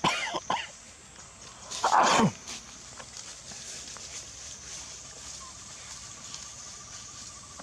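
Macaque calls: a quick run of high squeals at the start, then, about two seconds in, a louder harsh call that falls steeply in pitch.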